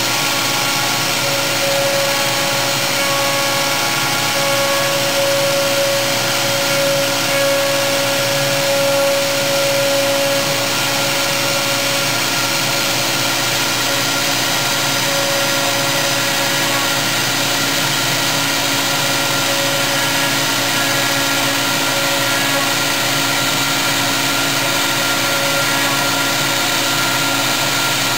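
CNC router spindle running with its end mill cutting into a wooden block: a steady machine whine with several held tones over the cutting noise, a little louder during the first ten seconds.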